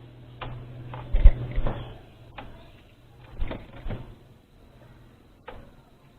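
Irregular knocks and thuds, several in the first two seconds and then more scattered, over a low hum that fades out about two seconds in.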